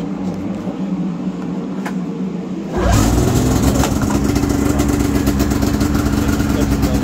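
2002 Arctic Cat Mountain Cat 800 EFI snowmobile's two-stroke twin-cylinder engine starting about three seconds in, after a steady low hum, then idling steadily.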